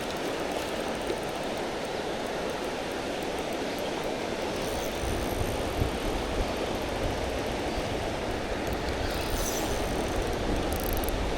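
Steady rushing of flowing river water. A low rumble joins it from about four and a half seconds in.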